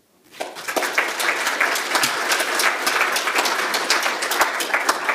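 Audience applauding: the clapping swells within the first second, then holds steady.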